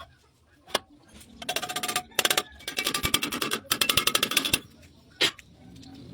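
A power tool run in four short bursts of rapid, rattling clatter, with a single sharp knock shortly before the bursts and another after them.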